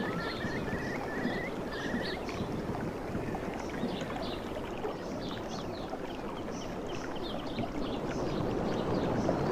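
Sea surf washing on a beach: a steady rush of waves that swells a little near the end. A few short high chirps sound in the first couple of seconds.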